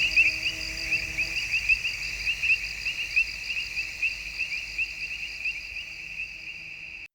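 Crickets chirping in a steady high-pitched chorus of rapid repeated chirps. The chorus fades slowly and cuts off suddenly near the end.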